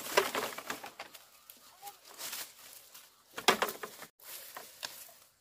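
Irregular knocks and scraping, with a few short chicken calls in between.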